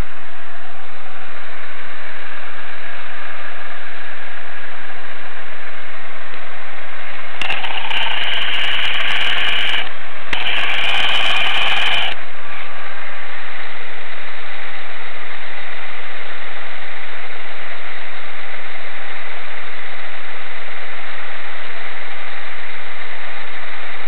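Car engine running at idle, heard close up in the engine bay, with an abnormal noise from the water pump. About seven seconds in, a loud harsh rattling noise lasts about two seconds, stops briefly, then returns for about two more seconds.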